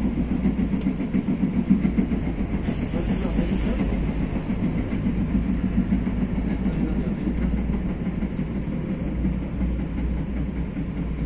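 TE-90 light rail train running along the track: a steady rumble of wheels on rail, with a faint high hiss for about a second and a half a couple of seconds in.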